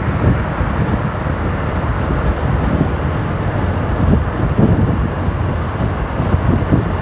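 Wind rushing over the microphone of a 150 cc motorcycle riding at road speed, with a steady low engine hum and road noise underneath, swelling in gusts.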